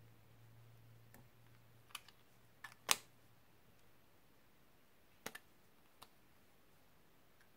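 Sharp little plastic clicks and taps from pencil lip balms being handled, caps pulled off and put back on. They come singly and in pairs, with the loudest about three seconds in.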